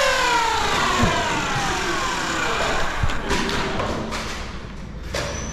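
Flywheel motors of a Nerf Pro Stryfe X blaster winding down after a rev: a whine that falls steadily in pitch over about three seconds. A couple of dull thuds and a few sharp knocks come in toward the end.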